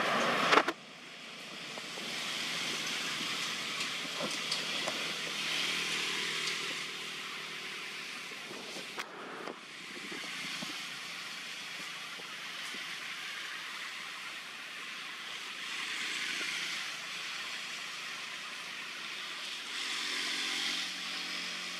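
Steady outdoor background hiss that swells and fades slowly, with a sharp click about half a second in, where the background drops, and a few faint clicks afterwards.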